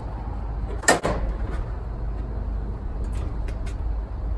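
The aluminium hood of a Mazda Miata (NA) being opened: a sharp metal clunk about a second in as the safety catch is released and the hood lifts, then a few light clicks near the end as the prop rod is set, over a steady low rumble.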